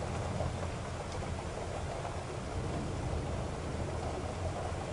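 A car driving in rain: a steady low rumble of engine and tyres on wet road under an even hiss of rain.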